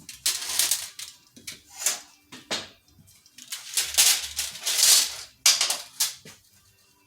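Rustling and rattling of small parts and materials being handled and moved about, in several short bursts with pauses between.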